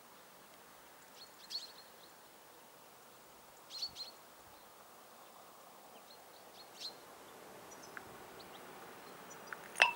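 Small birds giving a few short, high chirps over a faint steady outdoor hiss, with one sharp loud click near the end.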